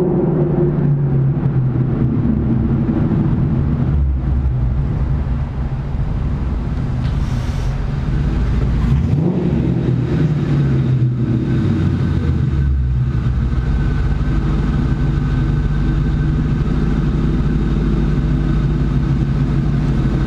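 2001 Ford Mustang GT's 4.6-litre V8 running through a Magnaflow exhaust, echoing in a garage. It idles, is revved once about nine seconds in, then settles back to a steady idle.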